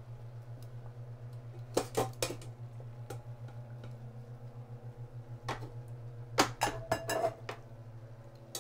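Metal tongs clinking against a stainless steel Instant Pot inner pot and a glass bowl as cooked kale is lifted across, in a few short clusters of clinks about two seconds in and again in the second half. A steady low hum runs underneath.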